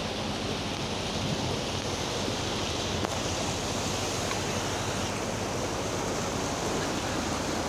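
The Yamuna river's upper reaches, a fast mountain stream rushing and splashing over boulders in a steady, unbroken wash of water.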